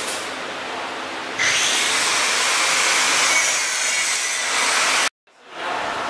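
Steady machine hiss in a factory hall, jumping louder about a second and a half in and cutting off abruptly near the end.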